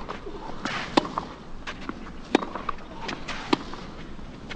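Tennis ball struck back and forth with racquets in a baseline rally on a clay court: three sharp pops about a second and a quarter apart, over faint stadium ambience.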